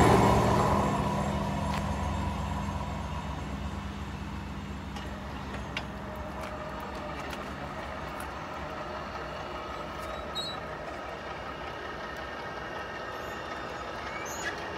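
VolkerRail on-track maintenance machine's diesel engine fading away as it leaves the crossing. A quieter steady hum with a faint whine follows while the level crossing barrier rises, with a few light clicks near the end.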